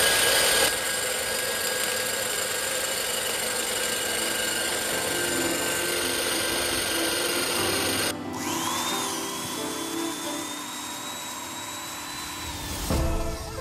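Electric drill with a large twist bit boring through the metal spring seat of a truck axle, enlarging the leaf-spring centre-bolt hole to take a bigger bolt. The cutting noise is steady. About eight seconds in it gives way suddenly to a thinner, high, steady whine.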